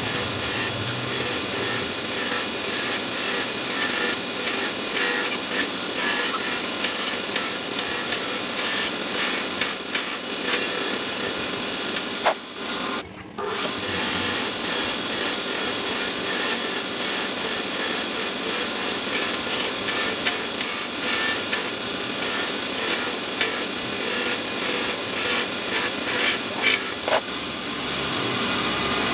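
Steady abrasive scraping of an air impact wrench's metal parts being cleaned in restoration, stopping for about a second near the middle before carrying on.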